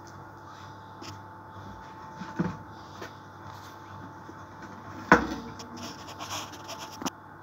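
A metal baking tray is knocked and shifted on a counter. There is a knock a couple of seconds in, then a loud clank about five seconds in, followed by two seconds of scraping and rustling that end in a sharp click. A faint steady hum sits underneath.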